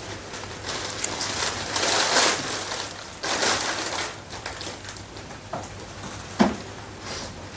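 Rustling and crinkling as an embroidered cloth prayer mat and a plastic bag are handled, in irregular swells, with one sharp tap about six seconds in.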